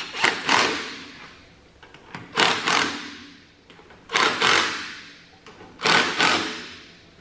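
Cordless power driver running briefly in four short bursts, about one every second and a half to two seconds, snugging the intake manifold bolts down onto new gaskets on an old tractor engine before they are torqued.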